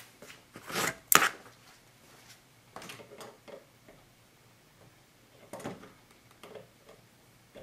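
Hand-tool and fitting handling noises while a brass pipe fitting is threaded into a plastic pump head and gripped with pliers: a scrape and a sharp clack about a second in, then lighter clicks and rattles.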